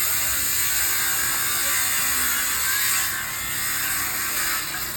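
Steady, harsh hiss and crackle of metalworking, easing somewhat about three seconds in.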